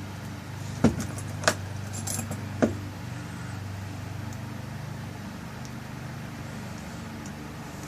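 Four sharp metallic clicks of small lock parts as the tail piece is fitted and screwed onto a rekeyed lock cylinder, in the first three seconds, over a steady low hum.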